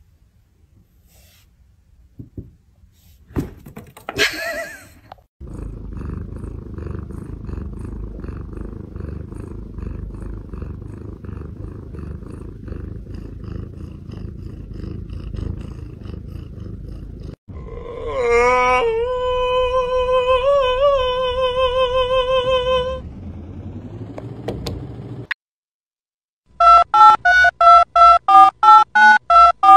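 A cat purring, a steady low rumble. For a few seconds in the middle a long wavering pitched tone sounds over the purr. Near the end comes a rapid run of loud, evenly spaced electronic beeps.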